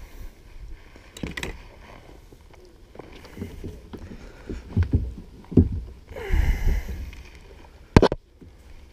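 Handling noise in a plastic fishing kayak: irregular knocks and bumps against the hull, with a rustling scrape about six seconds in and one sharp, loud knock about eight seconds in.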